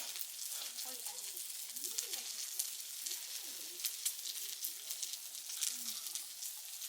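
Food frying and sizzling: a steady high hiss with frequent small pops and crackles.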